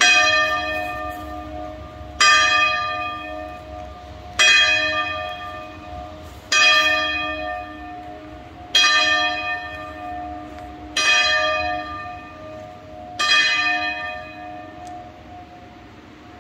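A tower clock bell striking seven times, one stroke about every two seconds, each stroke ringing on and fading while the bell's low hum carries between strokes.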